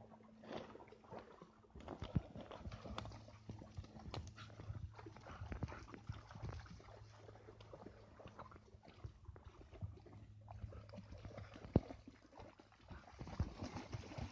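Footsteps and dogs' paws crunching and rustling on a hiking trail: irregular crunches with occasional sharper snaps, and a faint steady hum underneath.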